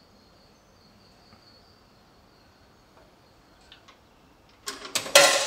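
A coin dropped into a vending machine's coin slot, clattering through the coin mechanism near the end as a brief, loud burst of metallic clicks and rattles that rings away.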